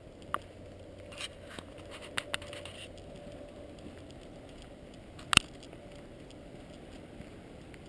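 Steady low rush of river rapids, with a few sharp clicks over it; the loudest click comes about five seconds in.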